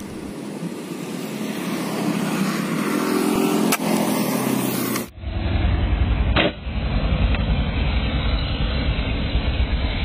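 Steady road traffic noise with a deep rumble, with one sharp pop of an air rifle shot about six seconds in and a lighter click shortly before four seconds.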